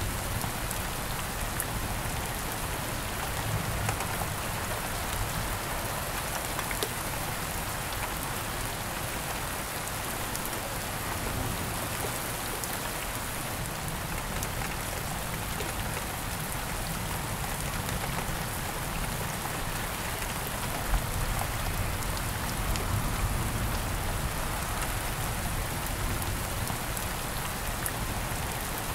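Steady rain falling, a constant even hiss with scattered drops ticking through it.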